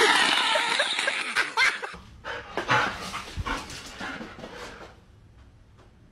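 A loud, rough noise for the first two seconds, then a large black-and-white dog giving short yips and barks, which die away about five seconds in.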